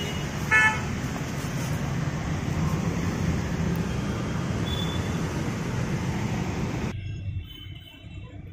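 Steady low rumble of a running vehicle, with a short high beep about half a second in. The rumble cuts off suddenly near the end, leaving a much quieter background.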